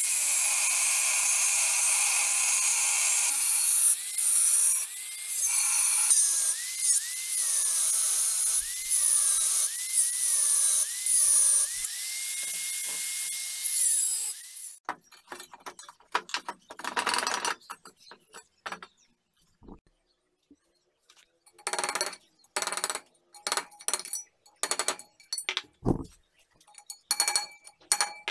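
Angle grinder cutting into a rusty steel car wheel rim. Its motor whine dips in pitch again and again as the disc bites into the metal, then steadies and cuts off about halfway through. Scattered knocks and scrapes of the steel rim being handled follow.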